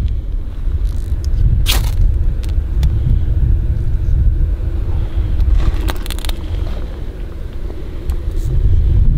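A steady heavy rumble of wind on the microphone. Over it a ferro rod is struck over kindling: one sharp scrape about two seconds in, then a quick run of scrapes around six seconds.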